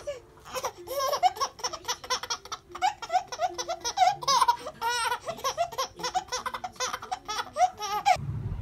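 A baby laughing hard in quick, high-pitched bursts of giggles, which cut off suddenly near the end.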